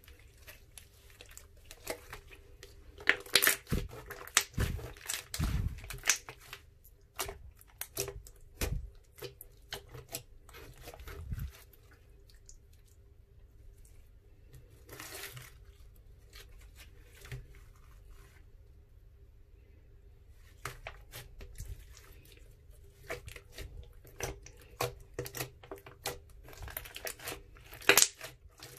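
Glossy slime being stretched, folded and kneaded by hand, giving sticky crackling and popping clicks. It goes quieter for several seconds in the middle, then the crackling picks up again as the slime is pressed and squeezed.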